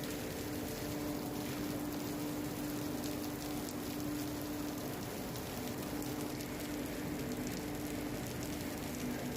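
Steady hissing crackle of electrical discharge sparking over wet, dust-coated equipment in a 33 kV substation, with a steady electrical hum underneath. The sparking is leakage current through dust that the rain has wetted.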